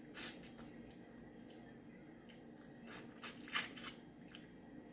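Wet mouth sounds of someone eating steamed seafood: a few short smacks and clicks, one near the start and a cluster of three about three seconds in.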